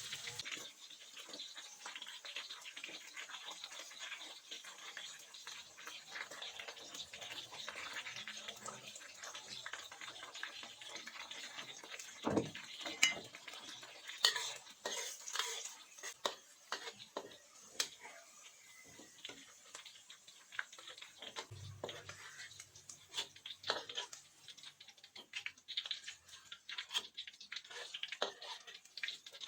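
A metal utensil stirring food in a cooking pot, with an irregular run of scrapes and clinks against the pan.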